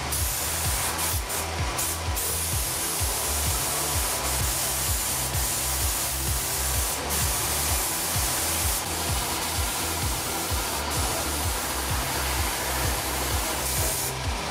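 Compressed-air paint spray gun with a gravity-feed cup hissing steadily as it sprays, with background music with a steady bass beat underneath.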